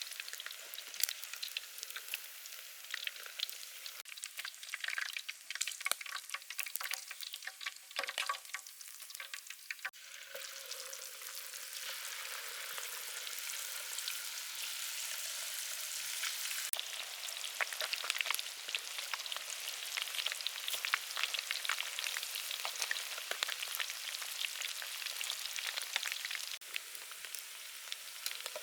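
Chicken feet deep-frying in hot soybean oil, the oil sizzling and crackling. The crackles come sparse at first and become a denser, steady sizzle about ten seconds in.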